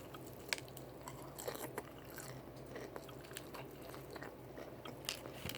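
Close-up chewing and biting of Popeyes fried chicken, with scattered small crunchy clicks of the crispy coating.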